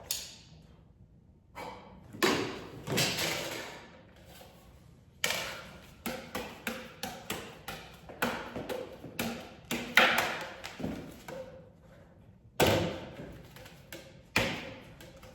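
A series of thumps and knocks, each with a short echoing tail. In the middle comes a quicker run of lighter taps, about two or three a second, and the heaviest knock falls about ten seconds in.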